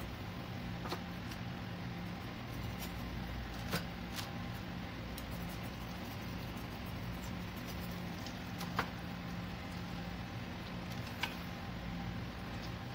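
A few sharp metal clicks as a small metal ring cup and utensil knock against a stainless steel saucepan while donut dough is lowered into hot oil, over a steady low hum.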